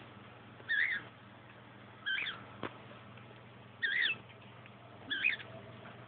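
Budgerigar giving four short, warbling chirps, spaced about a second and a half apart.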